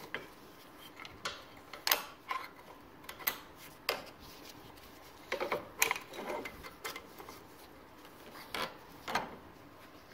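Irregular metal clicks, knocks and scrapes from a screwdriver and loose internal parts against the inside of an outboard gearcase housing as parts are worked loose by hand, with a denser stretch of scraping a little past halfway.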